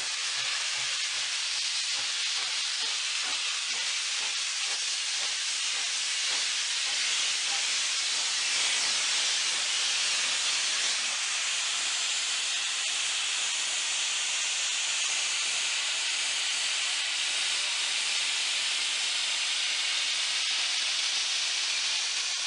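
Steam locomotive 3642 hissing steadily with escaping steam as it moves slowly past, a little louder after the first few seconds.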